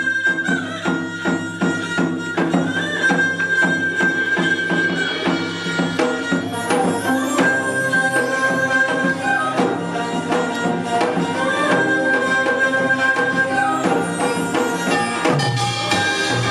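Korean traditional gugak ensemble music: a melody of long held notes that slide between pitches, over a steady beat of drum strokes.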